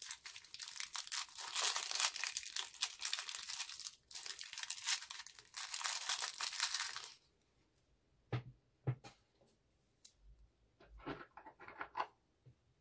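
Thin plastic piping bag crinkling and rustling as it is handled. This stops about seven seconds in, and a few separate light taps follow.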